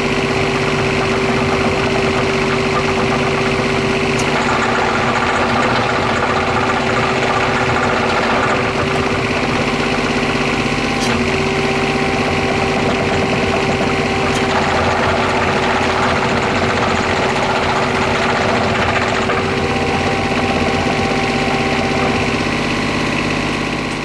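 Komatsu PC10-7 mini excavator's diesel engine running steadily, with whining tones from the machine that come and go every few seconds.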